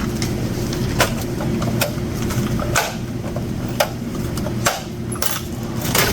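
Steady low machine hum with about seven short sharp clicks and taps spaced through it, as at a shop till between customers.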